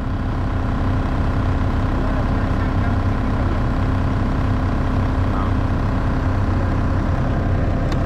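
ASV RT-40 track loader's diesel engine running steadily, heard from inside the operator's cab.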